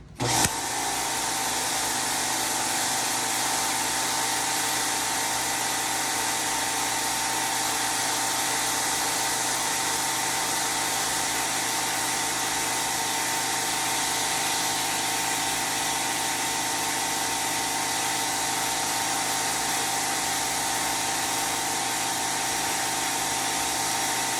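Greenworks 2000 PSI electric pressure washer kicking on as the trigger is squeezed, just after the start, then its motor and pump running steadily with a few fixed tones while the high-pressure water jet hisses against the concrete driveway.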